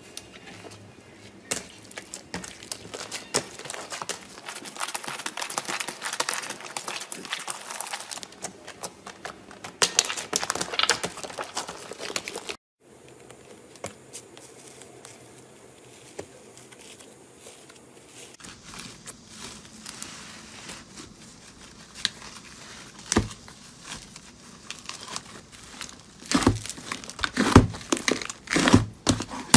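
Slime being squeezed and kneaded by hand, a dense run of fine crackles and small pops. It breaks off abruptly about halfway through, comes back quieter, and ends with a cluster of louder pops.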